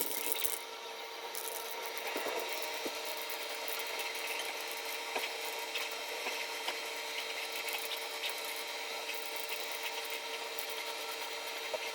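Sanding a primed 3D-printed part: a steady, scratchy rubbing of abrasive on the painted plastic surface to smooth out the print layer lines.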